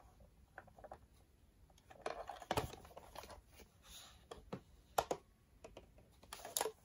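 Plastic Power Morpher toy replicas handled and turned over together: scattered light clicks and knocks of plastic on plastic, a sharper one about five seconds in.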